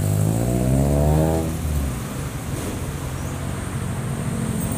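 Toyota Vios Gen 3 with an aftermarket Spoon-style silent muffler accelerating past, its deep, mellow exhaust note rising in pitch for about a second and a half. It then fades into steady road traffic noise.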